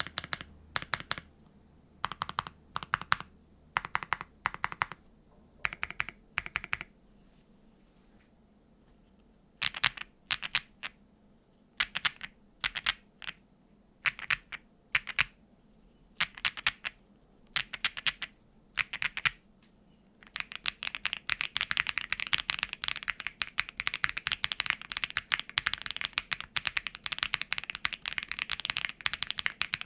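GoMaster Fossil mechanical keyboard being typed on: single keystrokes and short clusters of clacks with pauses between them, then steady fast typing for the last third.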